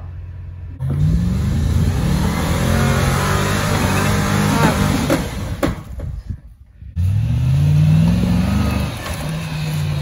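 Land Rover LR3's engine revving up hard under load as the truck is bounced up over a rock, easing off about six seconds in and revving up again a second later. A few sharp knocks sound midway.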